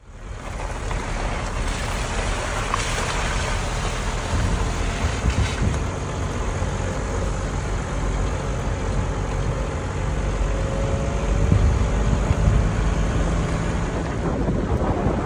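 Vehicle driving on a dirt road: a steady low rumble of engine, tyres and wind, fading in quickly at the start.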